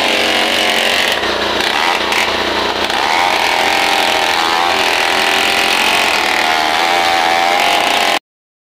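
A power tool motor running continuously, its pitch wavering up and down. It starts abruptly and cuts off suddenly near the end.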